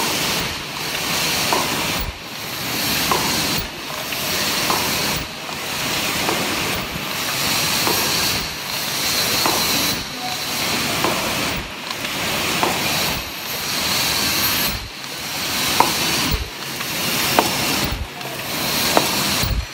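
MG-HC double wall paper cup making machine running. A steady air hiss swells and dips about once every second and a half with each machine cycle, with light mechanical clicks and knocks in between.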